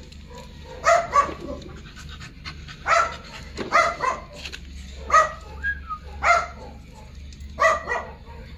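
A dog barking: about ten short barks coming in small clusters.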